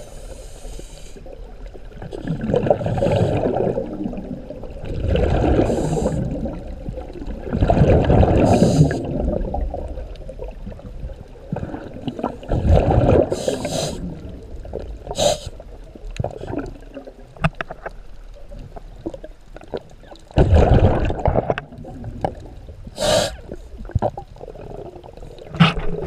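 Scuba diver breathing through a regulator underwater: bursts of exhaled bubbles rumble and gurgle every few seconds, with short hissing breaths between them, heard through a GoPro's waterproof housing.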